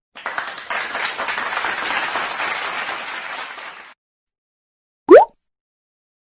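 Applause from a group of people clapping for about four seconds, cutting off suddenly. After a pause comes one short, loud tone that slides quickly upward in pitch, like a whistle.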